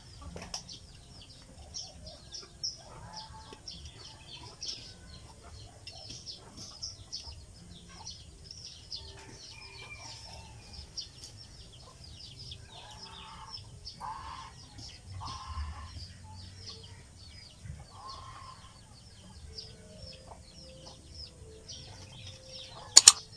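Chickens clucking, with frequent short high chirps from birds, and a sharp loud click near the end.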